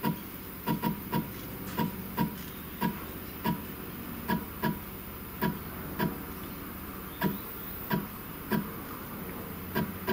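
A CNC router's Z-axis stepper motor is jogged down in small increments. It makes a string of short clicks at uneven spacing, about two a second, as the cutter is lowered onto a paper feeler to find the new tool's zero.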